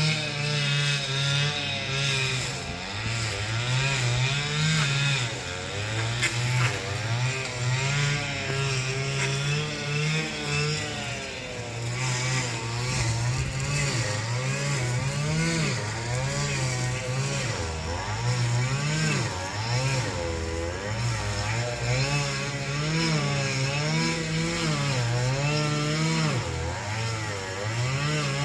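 Small engine of a handheld power tool used for clearing vegetation, running continuously with its pitch rising and falling as it is revved and loaded.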